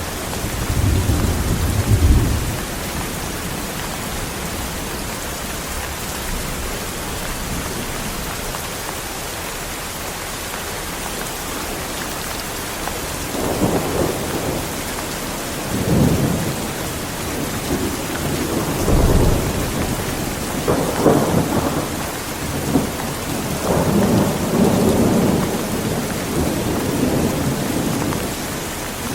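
Steady heavy rain on surfaces with thunder. A low rumble comes in the first couple of seconds, then a longer stretch of repeated rolling rumbles builds from about halfway through and fades near the end.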